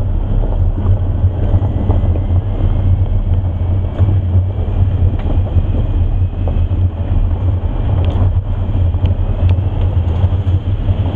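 Suzuki Across plug-in hybrid SUV running on electric power along a gravel track, with no engine heard: a steady low rumble of tyres over loose stones, with scattered small stone clicks. Heavy wind noise from the bonnet-mounted microphone.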